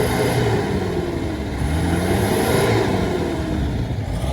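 Old truck's engine running under load, its engine speed falling, rising and falling again as it pulls. It runs continuously without coughing or misfiring.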